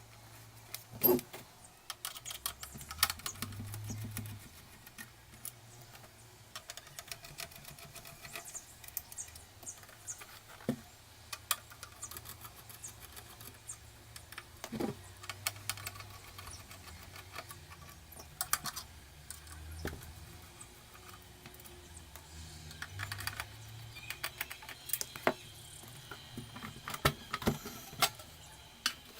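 Irregular light clicks, taps and rattles of small hard parts being handled, a few of them sharp and loud, over a faint low hum.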